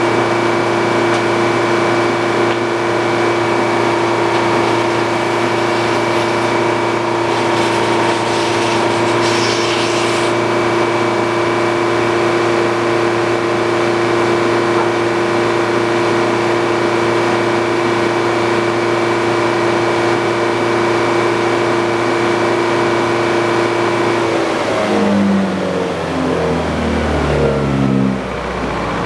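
Sawmill engine running at a steady high speed while the saw cuts, then throttled back about 24 seconds in, its pitch falling toward idle.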